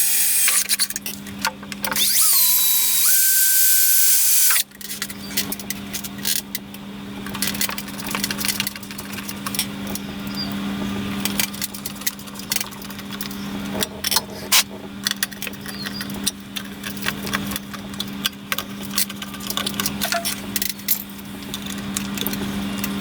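A power drill spins up with a rising whine and runs twice in the first five seconds, drilling to mount the switch box on the lathe's side. After it a steady low hum carries on under scattered clicks and taps of tools and small parts being handled.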